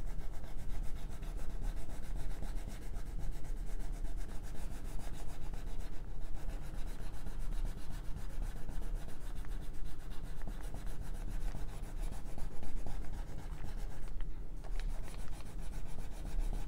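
Wax crayon pressed hard on paper in quick back-and-forth coloring strokes: a rapid, rough scratching that pauses briefly twice.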